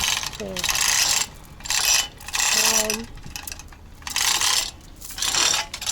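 Repeated bursts of rasping mechanical noise, each about a second long, with short pauses between them and a brief squeak or two.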